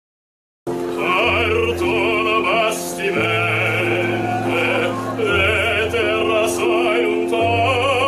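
Male opera singer singing with a wide vibrato, accompanied by piano playing held chords; the music starts after a brief silence less than a second in.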